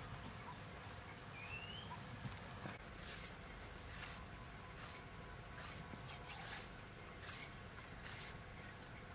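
Carrot being shredded into strips with a julienne peeler: a run of short, dry scraping strokes, about one every second, starting about three seconds in.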